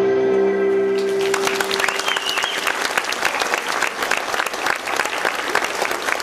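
The song's last held chord rings out and fades. About a second in, the audience starts applauding, with steady, dense clapping.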